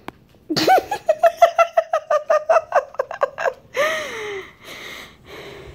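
A person laughing hard: a rising whoop, then a quick run of ha-ha-ha pulses, a falling sigh and two breaths near the end.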